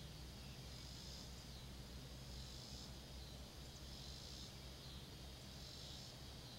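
Faint insect chorus: a high buzzing that swells and fades in slow pulses, over a low steady hum.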